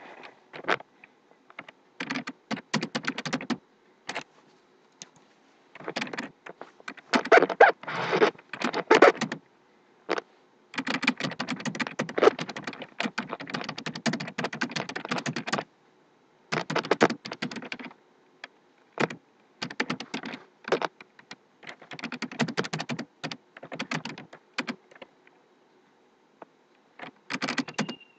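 Typing on a computer keyboard: quick runs of key clicks in bursts of one to several seconds, with short pauses between them.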